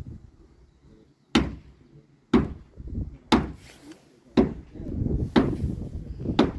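Heavy hammer blows on timber: six sharp strikes about a second apart, with a low rumble under the last few.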